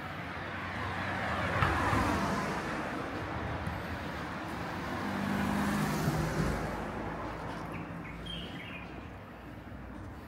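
Motor vehicles passing close by on a city street, one swelling and fading about two seconds in and another around six seconds, over steady traffic noise.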